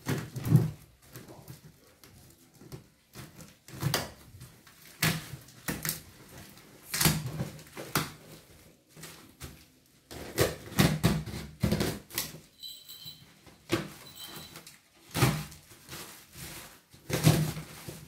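Black plastic parcel wrapping and packing tape crinkling and tearing as they are cut and pulled open with a cutter, in irregular rustling bursts every second or two.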